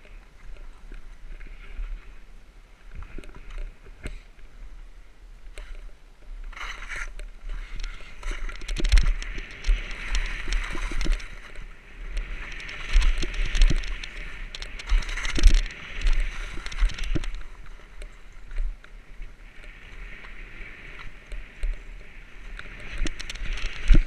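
Skis scraping and hissing over packed, chopped-up snow on a downhill run. The hiss rises and falls in swells of a few seconds, over low rumbling thumps.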